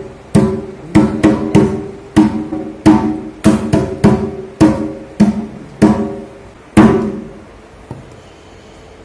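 A hand drum struck in an uneven beat, about two to three strikes a second, each with a short pitched ring. The beat ends on a louder strike about seven seconds in.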